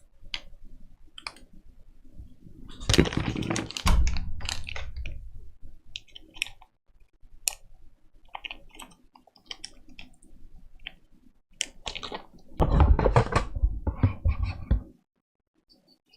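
Computer keyboard being typed on: scattered single keystrokes, with two fast runs of typing about three seconds in and again about twelve seconds in.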